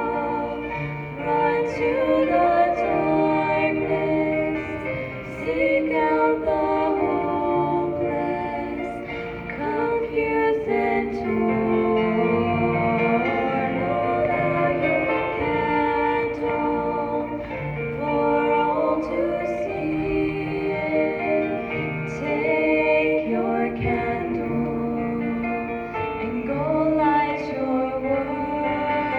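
High-school choir singing a song, a female lead voice carried over the ensemble.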